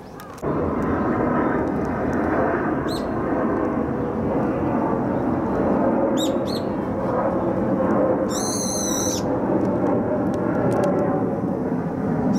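Steady roar of a jet airliner climbing out after takeoff, coming in suddenly about half a second in. Small birds call over it: a few short high chirps around three and six seconds, and a longer harsh call about eight seconds in.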